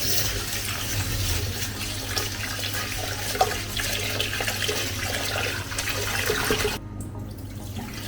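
Tap water running into a pot while jasmine rice is washed in it, a steady splashing hiss with small knocks, cut off sharply about seven seconds in.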